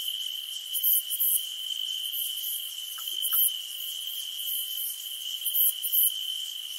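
Night insect chorus: a steady, high-pitched cricket trill, with short irregular bursts of a much higher buzzing call above it.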